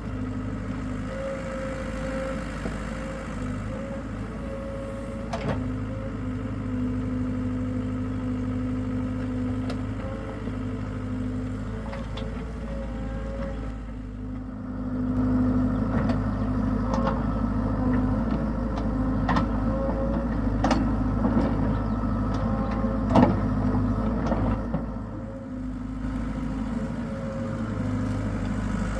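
Hitachi hydraulic excavator's diesel engine running steadily, growing louder about halfway through, with scattered sharp clanks, more frequent in the second half.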